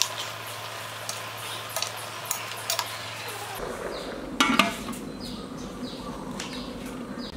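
A metal ladle stirs leafy greens in a large metal cooking pot, clinking against the pot again and again. About four and a half seconds in, a metal lid is set down on the pot with a loud clang.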